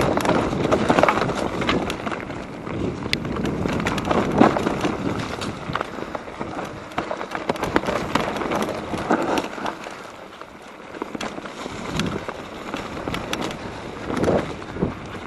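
Mountain bike descending a wet, leaf-covered dirt trail: tyre noise with many short rattles and knocks from the bike over rough ground, and wind on the microphone.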